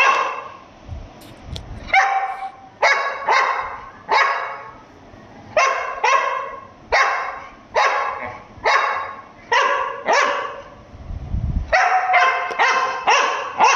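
A dog barking over and over, mostly in quick runs of two or three barks, with a short pause about ten seconds in.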